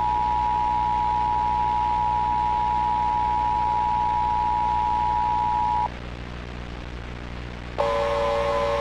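Emergency Alert System attention signal: a steady two-tone alarm over a low hum and hiss, cutting off about six seconds in. Near the end a different, lower pair of steady tones starts suddenly, with a wavering higher tone above it.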